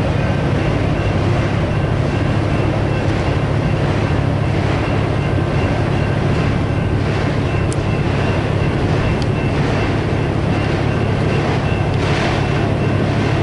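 Empty autorack freight cars rolling past, a steady low rumble of steel wheels on the rails, with two brief high squeaks from the wheels about halfway through. A grade-crossing bell rings in a steady repeating pattern behind it.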